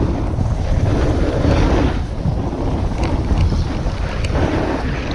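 Wind buffeting the camera microphone while snowboarding downhill, with the hiss and scrape of the snowboard's edges on packed snow rising and falling as it turns.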